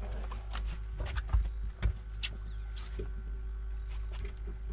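Scattered clicks and knocks from people moving about and handling a fishing rod in a boat, the two loudest knocks about a second and two seconds in, over a steady low hum.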